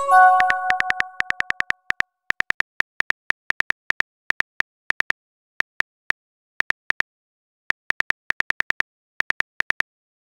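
A short chiming message tone at the start, fading over about a second and a half, followed by rapid, even keyboard tap clicks in irregular runs, several a second, as the next text message is typed.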